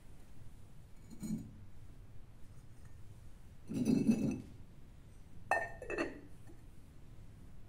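Glazed ceramic dish and its lid clinking against each other and the kiln shelf as they are lifted out of an electric kiln. A light clink about a second in, a louder clatter around four seconds, then two ringing clinks about half a second apart.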